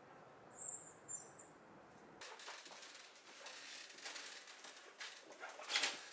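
A few short bird chirps, then a bicycle being wheeled: irregular light clicks and rustling, with a louder sharp click just before the end.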